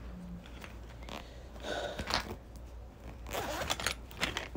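Zipper on a fabric makeup pouch being pulled, in two short rasps: one about two seconds in and one near the end, with a few small clicks of handling.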